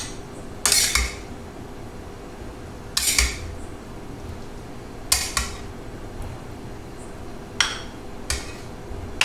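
A metal spoon scraping and clinking against a stainless-steel kadai as pasta is scooped out, in short strokes every couple of seconds.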